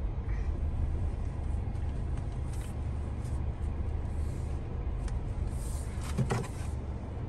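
Car engine running, heard from inside the cabin as a steady low rumble. A short clatter comes about six seconds in.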